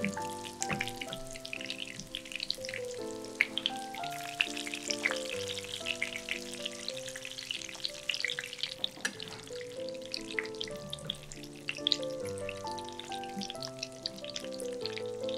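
Panko-breaded pork rolls shallow-frying in hot oil in a pan, sizzling with a steady crackle. Light background music plays over it.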